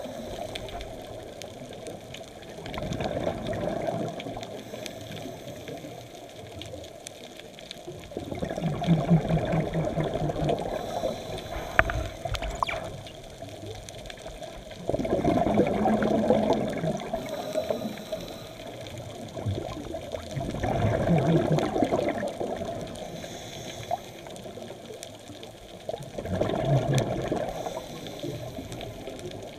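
Scuba diver breathing through a regulator underwater: a burst of exhaled bubbles about every five to six seconds, five times, over a steady water hiss.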